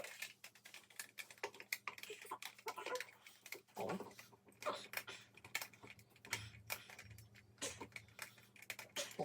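Irregular light clicks and taps, many in quick succession, with faint low voices at times.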